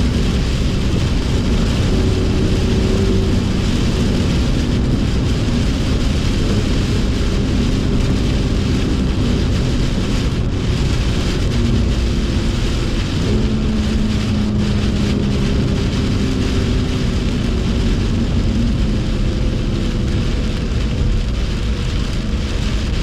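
BMW M2 engine running at steady, moderate revs, mixed with the hiss of rain and wet-tyre spray; the engine note steps to a new pitch about halfway through, as with a gear change.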